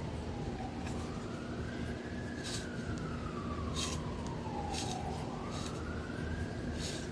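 Emergency-vehicle siren in a slow wail, its pitch rising and falling over about four to five seconds per cycle. Several short, crisp noises sound over it.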